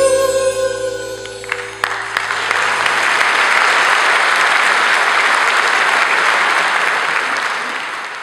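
The band's final held chord rings on and stops about two seconds in, then the audience applauds. The applause fades out near the end.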